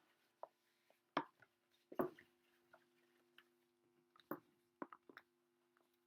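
Quiet handling noise from an electric guitar plugged into an amplifier: a handful of sparse clicks and taps over a faint steady hum.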